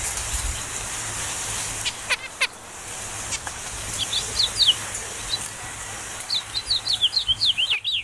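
Finch chirping: a few short falling chirps midway, then a quick run of about ten falling notes near the end, over a steady high hiss.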